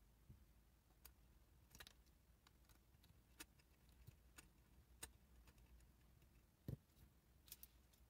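Near silence, with a few faint, irregular clicks and one soft knock about two-thirds of the way through.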